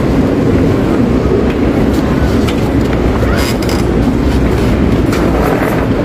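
Supermarket checkout-area ambience: a steady low rumble of the hall with a few brief clicks and rattles from the counters around the middle.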